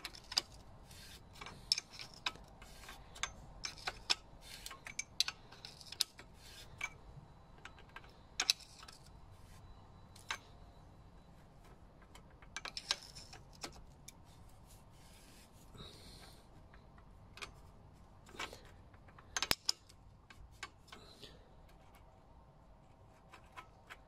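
Metal clicks and clinks of a flat bottom bracket spanner working the adjustable cup and lockring of a vintage bicycle bottom bracket. The taps come irregularly, thickest in the first ten seconds, with a few sharper ones about two-thirds through.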